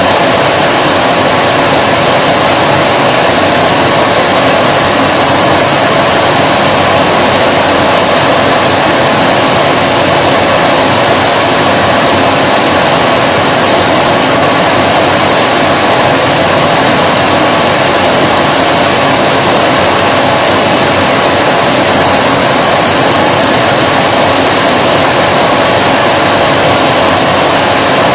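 Vacuum cleaner running steadily: a constant motor whine over an even rush of air, with no change in speed.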